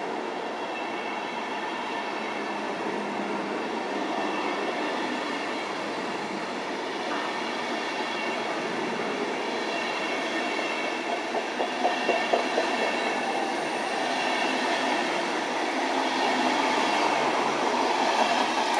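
Deutsche Bahn Intercity passenger coaches rolling past: a steady rumble of steel wheels on rail with a faint high whine. A quick run of clacks over rail joints comes about eleven to twelve seconds in, and the sound grows a little louder near the end.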